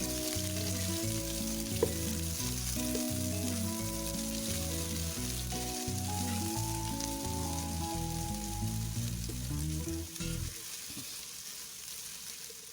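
Onions sizzling as they fry in hot oil in a cooking pot, with a single sharp tap a little under two seconds in. Background music plays over the frying and stops about ten seconds in, leaving the sizzle alone.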